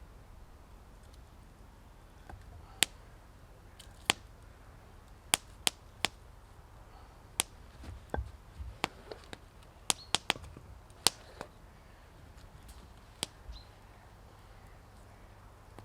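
Dry wood giving sharp, irregular cracks and snaps, about a dozen spread unevenly, with a little soft rustling between them.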